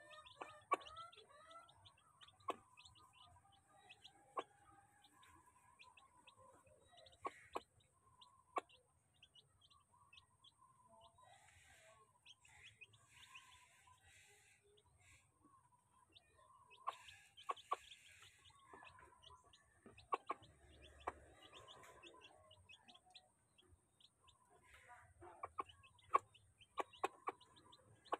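A hen clucking softly and chicks peeping as they feed, with scattered sharp taps of beaks pecking at the feed bowl, in clusters several times.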